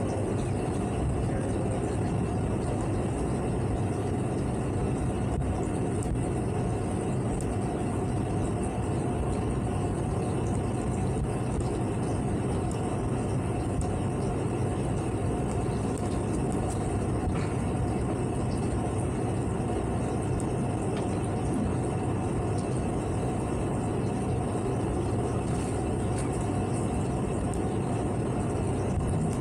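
Towboat engine running steadily at low speed during a slow side tow, an even drone with a faint high whine above it.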